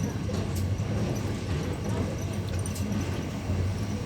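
Passenger train carriage riding along the rails: a steady low rumble with a few faint clicks and rattles.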